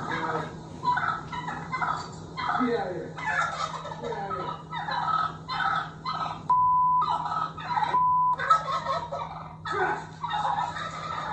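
A group of birds calling over and over in short bursts that sound like laughing. Two short censor bleeps come about two-thirds of the way in.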